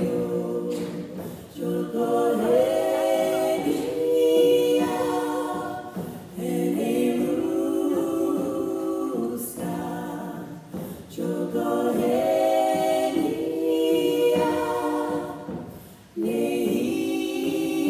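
A small group of women singing a cappella in harmony, in sung phrases of about two seconds with short pauses between them.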